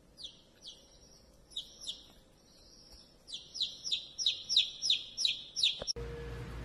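Baby chick peeping: short calls that fall in pitch, a few spaced out at first, then a quicker, louder run of about three peeps a second. Music starts abruptly just before the end.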